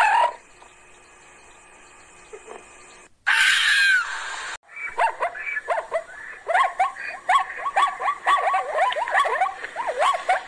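Animal calls: a short loud call at the start and another about three seconds in, then from about five seconds a fast run of high yips, several a second.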